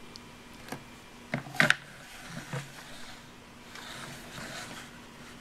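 A few light clicks and knocks from plastic pieces of a Play-Doh dentist playset being handled, the loudest pair about a second and a half in, followed by soft rustling.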